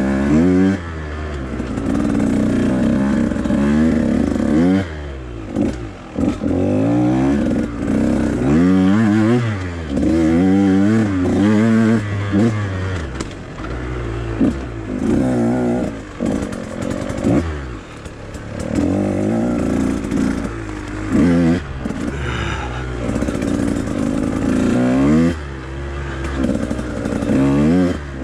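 Husqvarna TE 150 single-cylinder two-stroke dirt bike engine being ridden hard, its pitch rising and falling over and over as the throttle is opened and closed.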